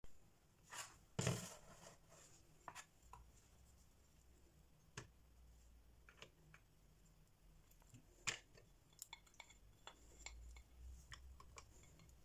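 Faint scattered taps and clicks of butter pieces being scraped off a dish with a silicone spatula and dropped onto squares of dark chocolate in a bowl, with a louder knock about a second in and another about eight seconds in.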